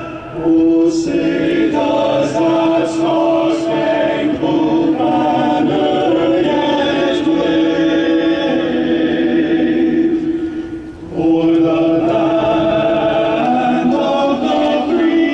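A choir singing slow, held notes without instruments, with a brief pause for breath about ten seconds in.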